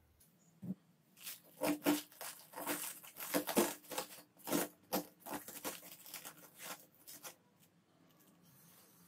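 Knife cutting and prying the hard core out of a raw white cabbage head: a quick run of crisp crunches and snaps as the stalk and inner leaves break. The crunching stops about a second and a half before the end.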